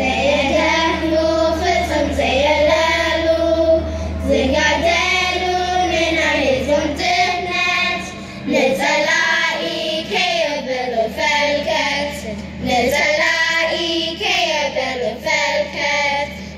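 A group of Eritrean children singing together, a song in phrases of a couple of seconds each with short breaks between them.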